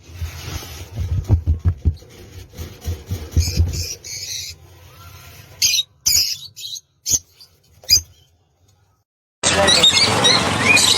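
Low thumps and rustling, a few sharp clicks, then a short gap before a flock of budgerigars breaks into loud, dense chirping chatter about nine and a half seconds in.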